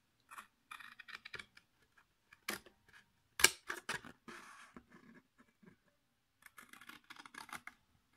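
Scissors snipping through thick pink cardstock in short cuts, with the card rustling as it is held and turned; the sharpest snips come about two and a half and three and a half seconds in.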